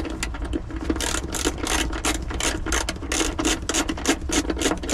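Socket ratchet clicking in a fast run, about six clicks a second, as the 12 mm bolt of a battery hold-down bracket is loosened.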